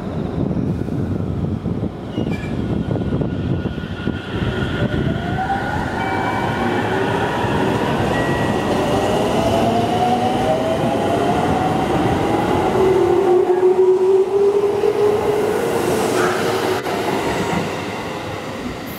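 JR Central 313 series electric train pulling out of the station: its VVVF inverter and traction motors give a whine of several tones climbing together in pitch as it accelerates past. The sound is loudest as the cars go by and falls away near the end as the train leaves.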